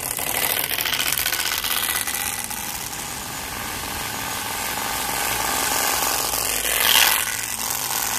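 Turbospoke bicycle exhaust running on a moving bike: the plastic motor card is flicked by the wheel's spokes and sounds through the exhaust pipe as a rapid, buzzing motorbike-like rattle. It grows loudest about seven seconds in.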